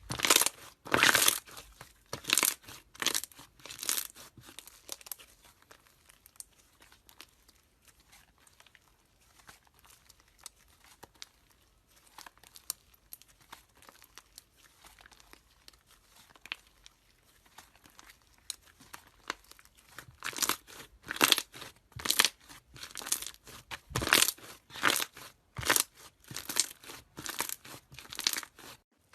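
Slime being squeezed and worked by hands, crackling and popping. Dense runs of crackles in the first few seconds and again over the last nine seconds, with scattered faint clicks between.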